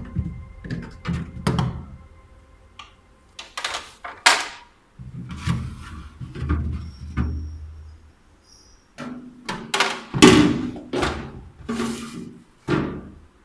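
Refrigerator trays and removable parts being pulled out and set down: a run of clunks, knocks and sliding scrapes, with a couple of short pauses.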